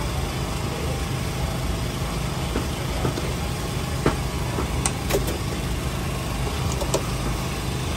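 A steady low rumble runs under a few sharp metallic clinks of a perforated noodle basket and ladle knocking against a steel boiling pot, with water splashing as the basket is lifted out to drain about four seconds in.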